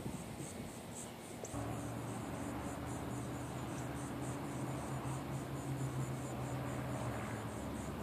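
Insects chirping in a high-pitched, even pulse about three times a second. A steady low hum comes in suddenly about a second and a half in.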